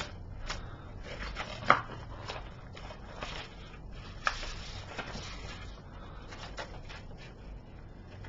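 Plastic DVD case being handled, most likely while its cover insert is worked in its sleeve: rubbing and rustling with scattered light clicks and taps, the sharpest about one and a half seconds in and another just past four seconds.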